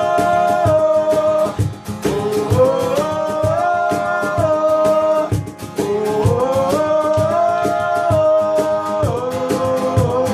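Acoustic band music: a voice singing long wordless notes over strummed acoustic guitar with steady percussive strokes. There are three phrases, each sliding up in pitch and then holding.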